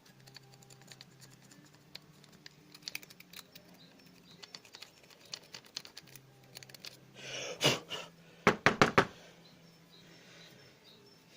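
Light clicking and tapping of small tools and parts handled on a workbench while a cordless drill motor's armature is cleaned. A short rustle and a quick cluster of louder knocks come about eight to nine seconds in.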